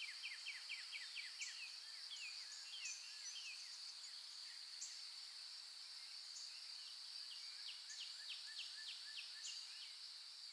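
Faint natural ambience: a steady high insect drone, with a bird calling in quick runs of short falling chirps, once near the start and again near the end.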